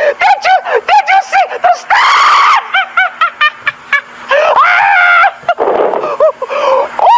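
A cartoonish puppet voice laughing hysterically: high-pitched cackling in quick repeated 'ha' bursts, broken by a few longer shrieking whoops.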